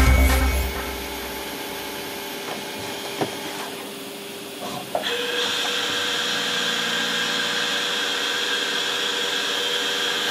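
TRAUB TNL18P CNC sliding headstock lathe running: a steady machine hum with a sharp click about three seconds in. About five seconds in it steps up to a louder, steady whine with a hiss.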